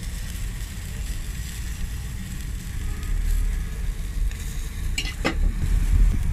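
Food sizzling on a flat street-stall griddle while pork in salsa is spooned onto a sope, over a steady low rumble. A metal spoon clicks against the food or griddle twice, about five seconds in.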